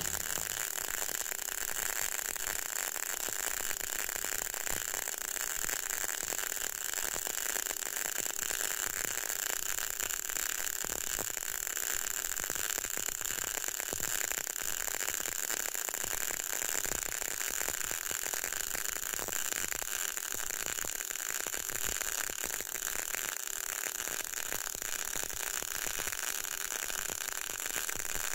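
CO2 semi-automatic (MIG) arc welding with low-current solid wire at about 120 amps and 18.4 volts, laying a vertical fillet weld with a weave: a steady, dense crackle of the arc throughout.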